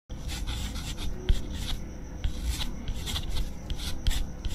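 Pen scratching on paper in quick, irregular strokes as a cursive signature is written.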